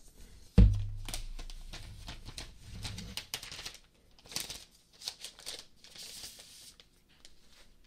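Protective plastic film being handled and peeled off a new laptop, with scattered rustling, crinkling and small clicks. A soft thump about half a second in.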